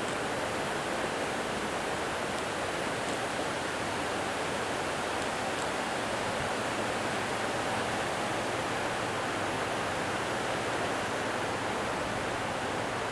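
Steady rushing of running water, an even hiss with no clear single events.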